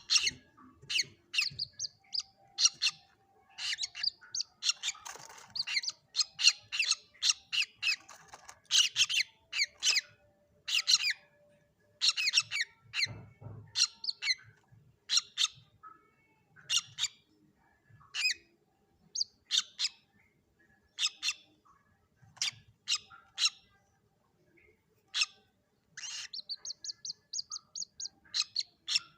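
Common moorhen chicks calling: short, sharp, high-pitched calls repeated at irregular intervals, with a quick run of about ten rapid high notes near the end.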